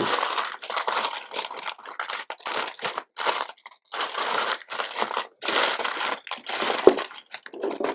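Hands rummaging through a pile of loose plastic LEGO bricks while searching for a part: irregular clattering and rattling, with a sharp click about seven seconds in.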